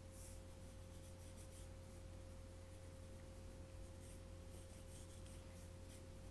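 Pencil sketching on sketchbook paper: faint scratchy strokes, in a spell during the first second and a half and another from about four to five and a half seconds in, over a faint steady hum.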